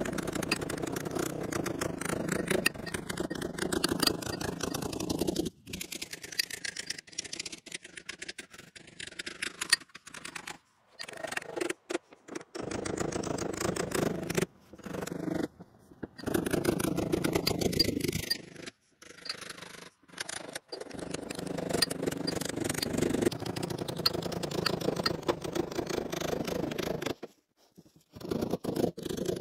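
Body hammer tapping rapidly against a dolly, rolling a steel door skin's hem flange over the door frame. The taps come in runs of several seconds, broken by short pauses.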